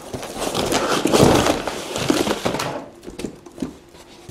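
Parcels and padded mailers sliding out of a tipped-over cardboard box onto a table: a rustling, scraping clatter for about three seconds, then a few light taps.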